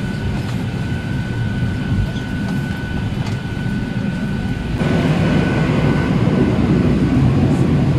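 Boeing 737-800 cabin noise after landing: a steady low rumble with a thin, steady high whine over it. About five seconds in the noise suddenly gets louder and fuller.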